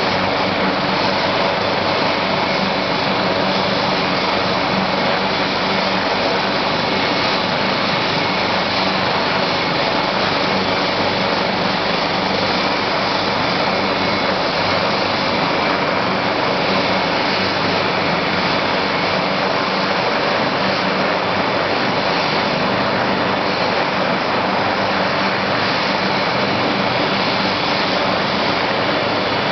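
AgustaWestland AW139 helicopter running on the ground, its twin turboshaft engines and main rotor turning steadily: an even, loud noise with a steady turbine whine on top.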